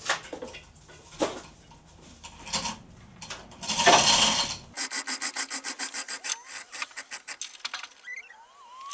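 Manual chain hoist being worked to lift a heavy load: a loud rasping scrape about four seconds in, then a fast, even run of clicks, about five a second, as the chain runs through the hoist.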